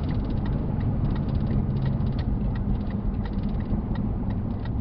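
A vehicle's engine running steadily while it drives along a rough backcountry dirt road, with frequent small knocks and rattles.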